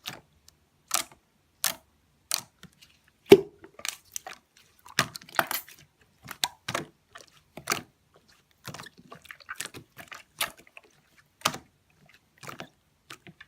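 Mixed slime being squeezed and poked by hand, giving irregular sticky clicks and squelchy pops, one or two a second, with a louder pop about three seconds in.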